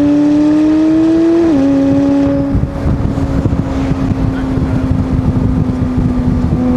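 McLaren 600LT's twin-turbo V8 pulling under light throttle, its note climbing slowly until an upshift drops it about a second and a half in; it then holds a steady cruising note.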